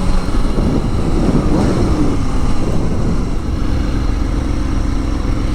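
Wind rushing over the microphone of a Kawasaki ZX6R rider at road speed, with the sport bike's engine running steadily underneath.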